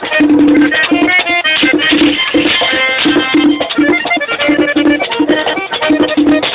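Live merengue típico: a button accordion playing a quick melody over the rhythmic scrape of a metal güira and a regular low beat.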